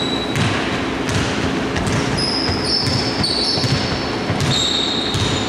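A basketball bouncing on a hardwood court, with several short, high sneaker squeaks on the floor from about two seconds in.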